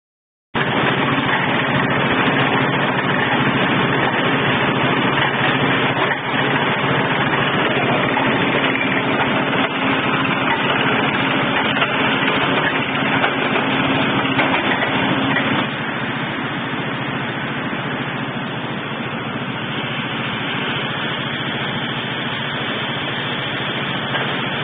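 Diesel engine of a small water well drilling rig running steadily with a dense mechanical din. About two-thirds of the way through it gets a little quieter and one steady hum drops out.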